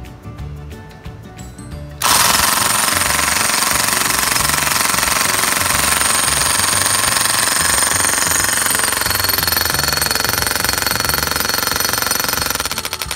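1940s Black & Decker electric hammer starting up about two seconds in and hammering a chisel bit into a concrete slab with steady, rapid blows, then beginning to wind down near the end.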